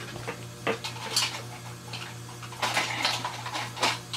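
Small plastic snaps clicking and clattering as they are handled, in a string of sharp irregular clicks, with a cluster about a second in and another near the end.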